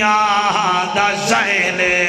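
A man chanting a Punjabi devotional qaseeda in a melodic, sing-song voice, holding and bending long notes.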